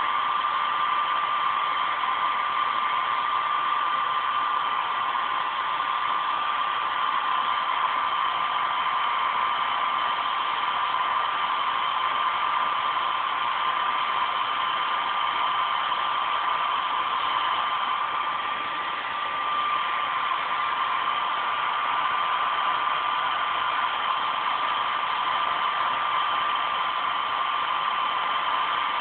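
Heat gun running steadily, blowing hot air with a constant high whine, drying a fresh coat of acrylic paint.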